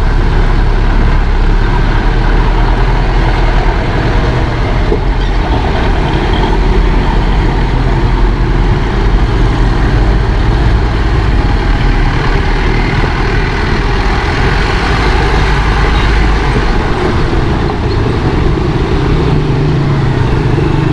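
Motor vehicle engine running steadily with road and traffic noise; near the end a steadier low engine hum comes in.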